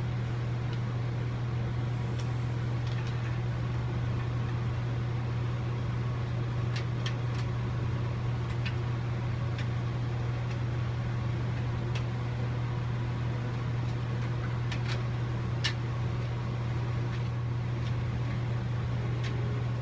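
A steady low mechanical hum runs throughout, with scattered light clicks and taps as aluminium rod-rack parts are handled and fitted together.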